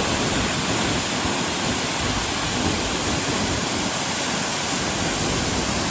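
Waterfall rushing, a loud, steady, even roar of falling water.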